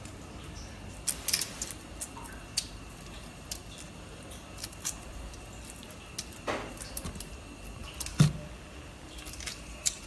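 Raw sea shrimp being peeled by hand, with irregular small clicks and snaps as heads and shells are pulled off. A louder thump comes about eight seconds in.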